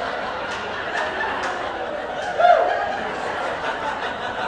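Comedy club audience laughing after a punchline, with one louder laugh standing out about halfway through.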